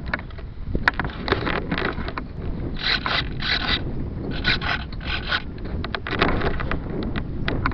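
Handling noise on a cheap keychain camera's microphone taped to a foam glider wing: irregular scraping and rustling, in clusters about 3 and 5 seconds in, over a steady low rumble of wind on the microphone.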